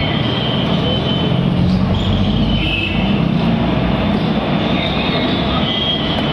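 Steady loud background noise, a low hum under a hiss, with a few short high whistling tones now and then.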